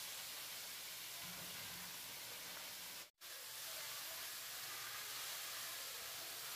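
Steady hiss of leafy greens sizzling in a hot frying pan, broken by a moment of silence about three seconds in.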